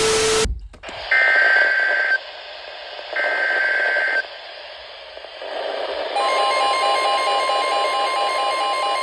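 Midland weather alert radio receiving an emergency alert: after a brief burst of static at the start, two screeching one-second data bursts of the alert header about a second apart, then from about six seconds a steady alert tone with a beeping pattern over it, the signal that a warning, here a tornado warning, is coming.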